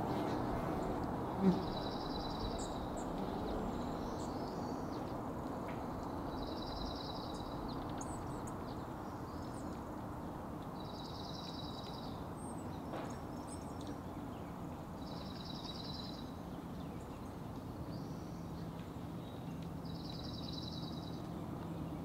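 A dark-eyed junco singing its short, even trill five times, about once every four seconds, over a steady low background rumble. A single short thump about a second and a half in is the loudest sound.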